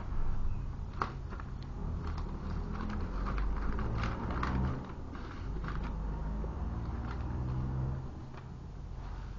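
Origami paper rustling and crinkling in the hands as it is folded and creased, with scattered small, sharp crackles over a low steady rumble.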